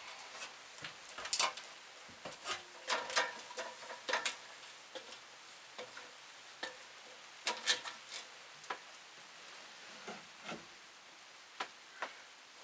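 Irregular clicks, knocks and clanks of a worker climbing onto an aluminium extension ladder, with boots on the rungs and metal knocking against the wooden wall framing, over a faint steady hiss.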